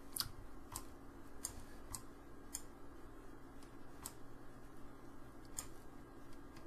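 Computer mouse clicking: about seven short, sharp clicks at irregular intervals, over a faint steady low hum.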